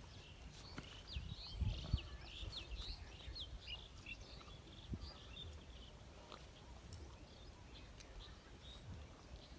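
Small birds chirping in many short, quick calls, mostly in the first half, over faint outdoor background noise, with a couple of low thumps about a second and a half in.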